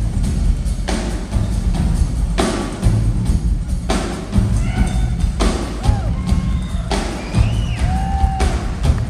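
Two rock drummers playing full drum kits together, a heavy, dense low end with cymbal crashes about every second and a half on Zildjian cymbals.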